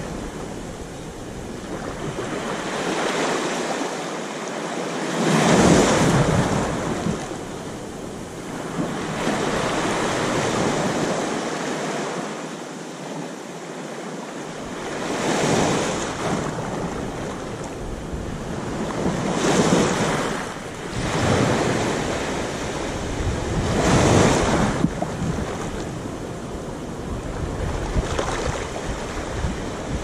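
Small waves lapping onto a sandy beach, each wash swelling and fading every few seconds, with no regular spacing. A low wind rumble on the microphone lies underneath and drops out twice.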